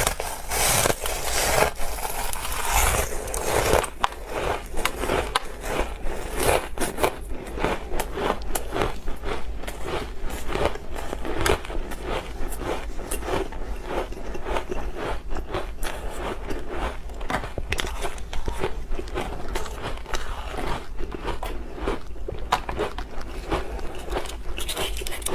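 Soft, crispy flavoured ice chips being bitten and chewed close to the microphone: a dense run of crunches throughout, thickest in the first four seconds.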